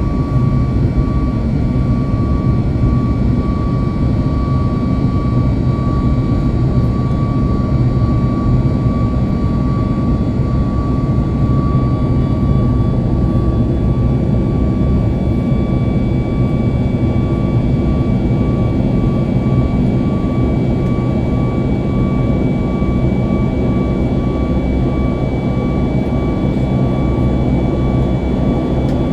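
Boeing 737 MAX's CFM LEAP-1B jet engines running steadily, heard from inside the passenger cabin as a dense, even rushing noise with a thin steady whine; a second, higher whine joins about halfway through.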